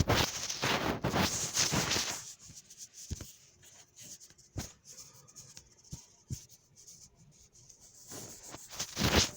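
Rustling, rubbing noise for the first two seconds and again near the end, with a few faint clicks in between.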